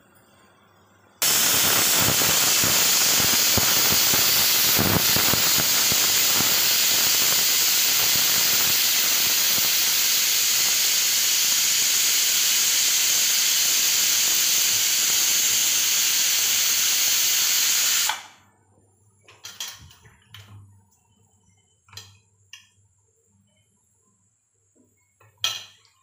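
Aluminium pressure cooker's whistle weight letting off steam: a loud, steady hissing whistle that starts suddenly about a second in, holds for about seventeen seconds and cuts off abruptly.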